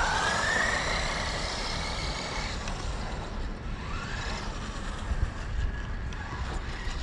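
Wltoys 12429 RC buggy's 550-size electric motor whining as the buggy accelerates across asphalt. The whine rises right at the start and holds for a couple of seconds, then rises again more faintly later on, over a steady low rumble.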